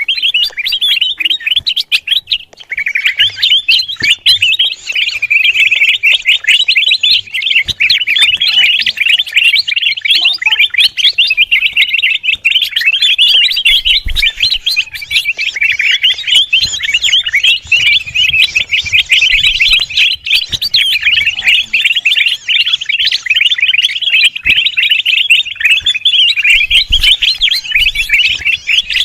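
Kutilang emas, a bulbul, chattering noisily and without pause: rapid, densely packed high chirps and twitters.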